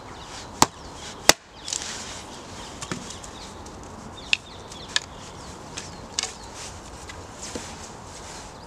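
An axe chopping into and splitting small sticks of wood. There are two sharp knocks in the first second and a half, then lighter knocks and taps of wood about every second.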